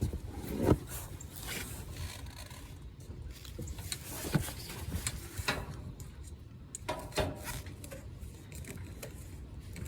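Irregular clicks, knocks and short scrapes of tools and copper tubing being handled, with no steady machine sound.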